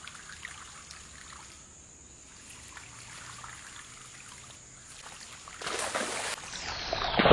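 Water trickling and splashing in a shallow creek, faint at first and much louder from about five and a half seconds in as the water is churned up.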